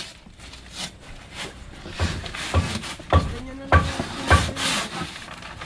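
Repeated rubbing or scraping strokes on a hard surface. From about two seconds in, each stroke ends in a dull knock, roughly every half second.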